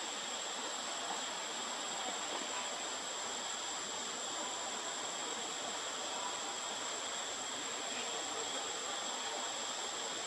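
Steady insect chorus: a thin, unbroken high whine over an even outdoor hiss, with no breaks or changes.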